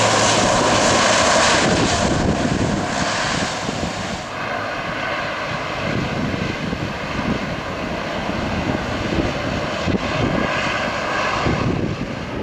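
Twin-engine turboprop airliner taxiing close by with its engines and propellers running. It is loudest in the first few seconds, then settles into a steadier run with a high, even whine.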